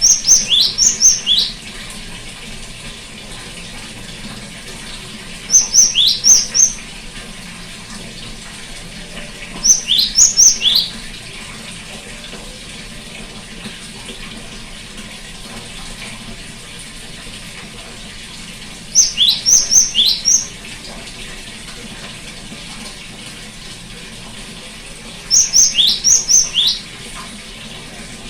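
Great tit calling in five short bursts of quick, high, down-slurred notes, spaced a few seconds apart, over a steady rushing background noise.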